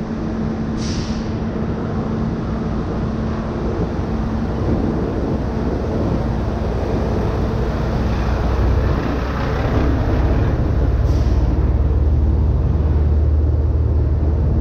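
Diesel engine of a Western Star prime mover pulling a tanker trailer, running as the truck drives past close by, growing louder and deeper near the end. Two short hisses of air from the truck's air brakes, about a second in and again about eleven seconds in.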